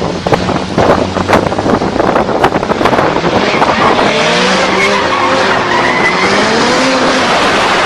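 Convertible sports car sliding through a turn, its tyres skidding while the engine revs up and down in pitch from about four seconds in, over heavy road and wind noise.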